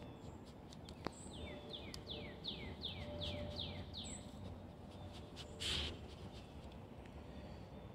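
A bird singing a quick series of about eight notes, each sliding downward in pitch, at roughly three a second. A little later comes a short noisy burst as the dog noses into the iris leaves.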